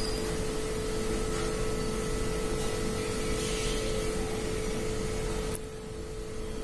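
Steady background hum and hiss, with a single click near the end after which the hiss drops away and only the hum remains.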